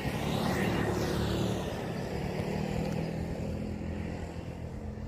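A motor vehicle's engine going past on the road, its steady hum fading gradually.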